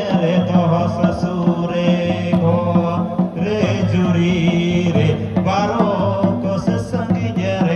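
Santali Sohrai folk music: hand drums keep a steady beat under a chanting melody.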